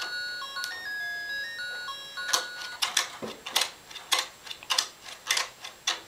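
Baby activity jumper's electronic toy playing a simple tune of plain beeping notes, which stops a little before halfway. From about two seconds in, sharp plastic knocks on the jumper repeat about twice a second.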